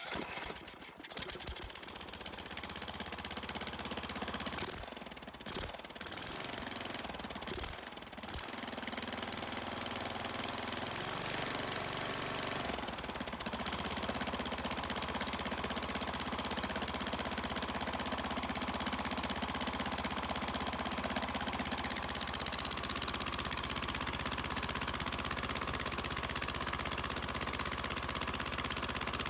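Rebuilt Kohler Courage 20 hp engine cold-started on choke, catching at once. It runs unevenly with several stumbles for the first eight seconds or so, then settles into steady running from about fourteen seconds in.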